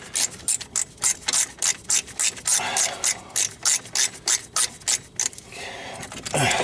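Hand socket ratchet clicking in quick strokes, about four clicks a second, as a front wheel hub mounting bolt is backed out. The clicking stops about five seconds in.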